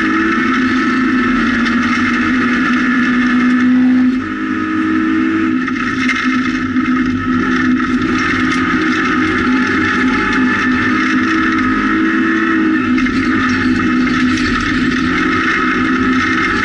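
Rally car's engine heard from inside the cabin, running hard at high revs along a gravel stage. The engine note dips briefly about four seconds in, then carries on steadily.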